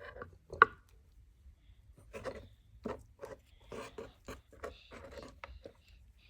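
Light, irregular taps and knocks of dolls and small dollhouse pieces being handled and moved, with one sharper knock about half a second in and a run of quicker taps from about two seconds in to near the end.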